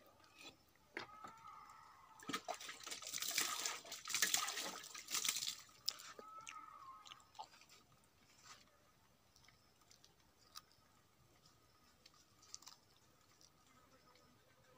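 Faint running or splashing water for about three to four seconds, starting about two seconds in, with scattered small clicks and knocks around it.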